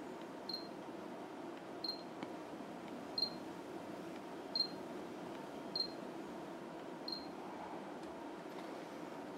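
Samsung NX200 camera's autofocus-confirmation beep, sounding six times about 1.3 seconds apart as the lens locks focus again and again. Each beep is short and high-pitched.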